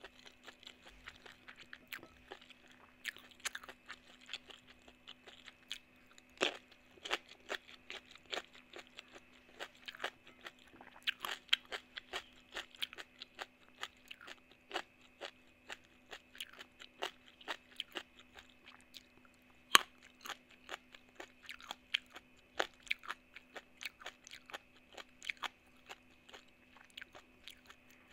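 Close-miked mouth sounds of crunching and chewing raw vegetables and rice, with many sharp, irregular crunches over a faint steady hum.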